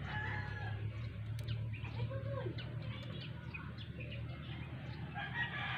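Yard chickens calling and small birds chirping over a steady low hum, with a rooster starting to crow near the end.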